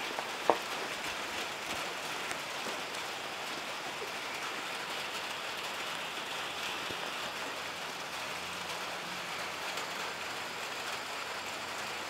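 Steady hiss of background noise, with one sharp click about half a second in.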